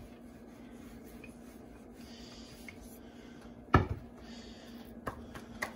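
Wooden rolling pin rolling paratha dough on a stone countertop with a faint rubbing, then one sharp knock a little under four seconds in as the pin is set down on the counter, followed by a couple of light taps as the dough is handled. A faint steady hum runs underneath.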